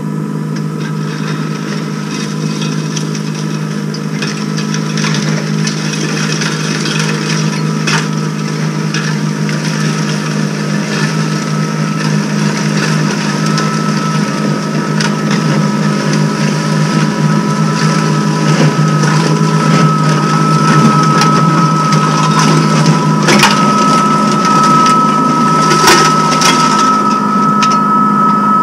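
Greenworks Pro 80V two-stage electric snowblower running steadily while throwing snow: a steady low hum with a high whine over it, growing louder as it comes closer. A few sharp clicks come through the whine.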